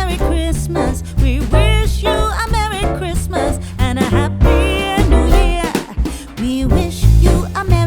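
Upbeat background music with a singing voice and a steady bass beat.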